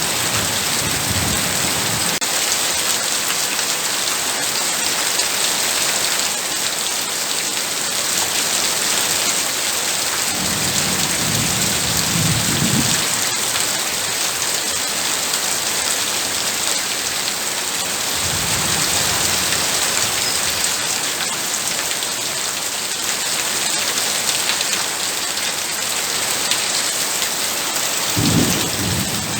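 Heavy rain pouring steadily, with low rumbles of thunder three times: about ten seconds in, about eighteen seconds in, and near the end.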